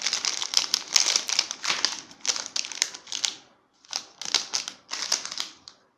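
Small plastic attachments of a handheld digital microscope clicking and clattering as they are handled and fitted, in quick irregular clusters with a brief pause about halfway through.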